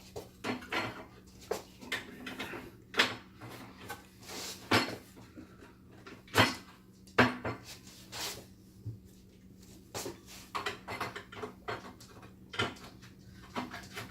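Metal and plastic parts of a 1-800 bulk candy vending machine being handled and fitted together: irregular clicks, knocks and clatters, a few of them sharp and loud.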